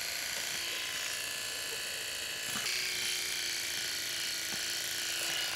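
Electric pet clippers running steadily as they work through a Persian cat's densely matted coat, with a slight change in tone about two and a half seconds in.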